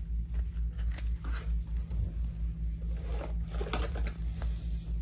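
Hands working a trading card into a clear plastic card holder, with short plastic scrapes and clicks and a cluster of sharper clicks about three and a half seconds in. A steady low hum runs underneath.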